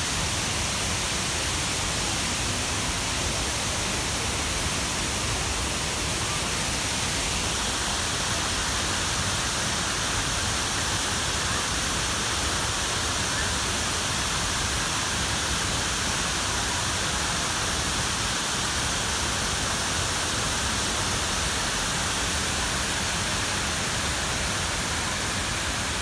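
Shiraito Falls, dozens of thin streams of water pouring over a wide cliff into a pool, making a steady rush of falling water. The hiss grows a little brighter about seven seconds in.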